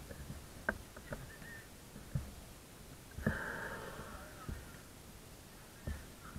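Football match ambience: distant voices, with a few sharp thumps spread a second or so apart.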